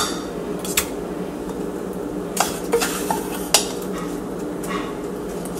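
A metal spoon clinking and scraping against a stainless steel mixing bowl while scooping buttered cookie crumbs into small springform pans: about six light, separate taps, over a steady low hum.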